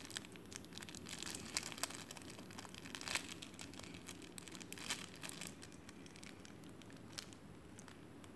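Clear plastic packaging bag around a squishy toy crinkling as it is handled, in scattered crackles that grow sparser after about three seconds.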